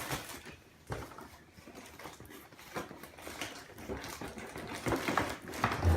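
Scattered rustling and light clicks of a toy box and its packaging being handled and opened, growing busier toward the end.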